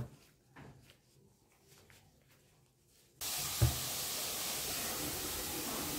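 Faint soft knocks at first. About three seconds in, a steady hiss starts abruptly and keeps going, with a dull thump just after it starts.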